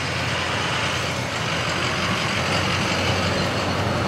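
Golf cart driving along a paved road: a steady low hum from its motor under even road and tyre noise.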